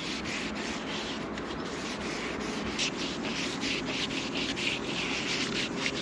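Wet green scouring sponge scrubbed back and forth over a fibreglass boat deck, a steady run of short rasping strokes, about two or three a second, as years of dirt are worked out of the deck's grooves.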